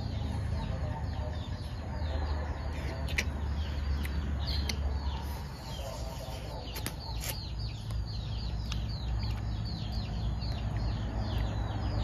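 Chickens clucking, with a steady run of short falling chirps at about three a second and a few sharp clicks.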